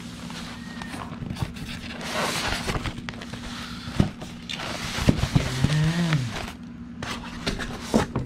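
Styrofoam and cardboard monitor packaging being handled: rubbing and scraping as the foam block and box flap are lifted, with a few sharp knocks. A short pitched sound rises and falls about five and a half seconds in, over a steady low hum.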